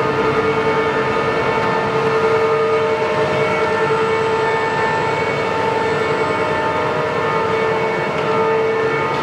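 Kingston HD heavy-duty geared-head engine lathe running under power with a steady gear whine of several held tones.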